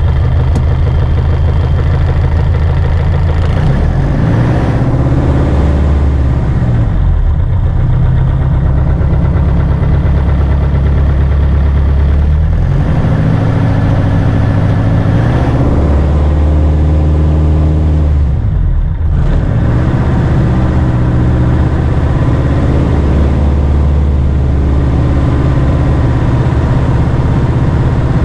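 Jodel light aircraft's piston engine and propeller running loud and steady during pre-take-off engine checks, the engine note dropping and recovering three times as the revs are changed.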